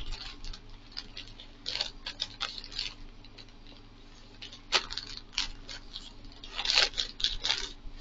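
Clear plastic bag crinkling and rustling in irregular crackles as it is handled and opened, loudest about five seconds in and again near the end.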